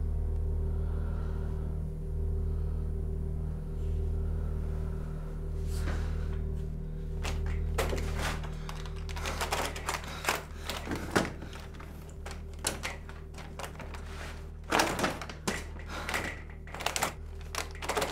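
Hands knocking and rattling against a barred gate, a run of irregular sharp knocks and clatters starting about six seconds in, after a few seconds of only a low steady hum.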